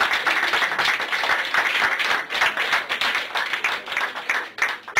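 A group of people applauding, many hands clapping at once in a dense, even patter.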